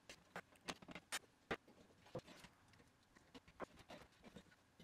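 Faint, irregular small clicks and taps of hands handling a disassembled Tandon TM-100-2 floppy drive and its circuit board.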